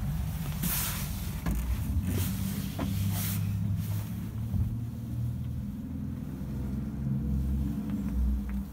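Scania R450 truck's 13-litre six-cylinder diesel idling, a steady low rumble heard from inside the cab. A few brief rustles and scrapes of someone climbing into the cab come in the first few seconds.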